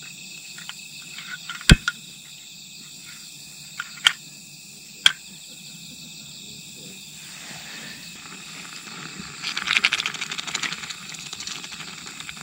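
Insects trilling steadily, broken by a few sharp clicks. About nine or ten seconds in, a crackling sizzle sets in as canned beef stew heats fast at the bottom of the can on the camp stove.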